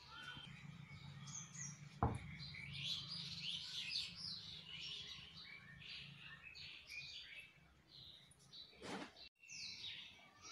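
Several birds chirping and twittering, many short calls overlapping, with a sharp click about two seconds in and a low steady hum under the first part.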